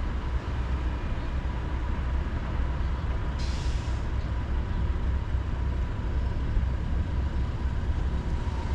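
Road traffic at a busy city intersection: a steady low rumble of vehicles, with one short hiss about three and a half seconds in.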